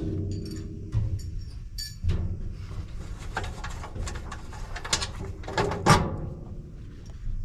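Metal knocks and clinks as the brackets and fittings of an electric sauna stove are handled and worked loose, with one sharper knock near the end, over a low steady hum.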